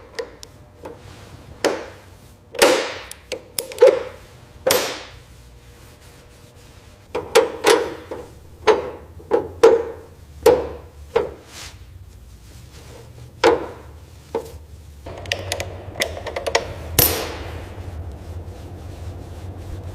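Hand tools at work: an irregular run of sharp knocks and taps mixed with a few longer scraping strokes, with a short lull partway through.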